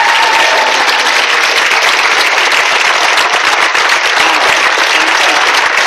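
Large audience applauding: loud, steady, dense clapping from a full hall.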